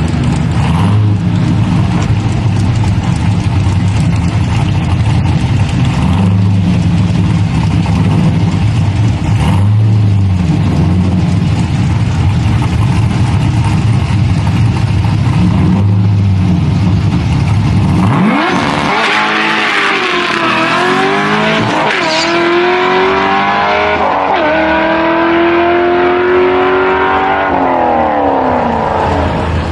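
A drag-racing car's engine idling for about eighteen seconds, then launching and accelerating hard down the strip, its pitch climbing and dropping back at each of several gear shifts.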